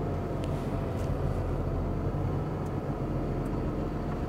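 Diesel engine of a Peterbilt 220 cab-over hook truck running steadily while its Palfinger hydraulic hooklift pulls a loaded roll-off dumpster up onto the truck, with a few faint clicks.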